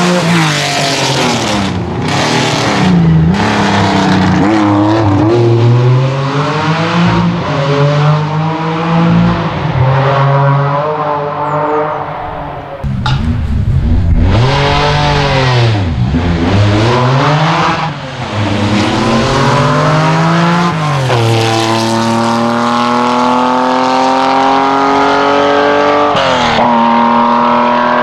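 Air-cooled flat-six engines of classic Porsche 911 rally cars driven hard, the revs rising and falling again and again with quick gear changes. From about three-quarters of the way in, one long climb in a single gear, then a shift and another climb near the end.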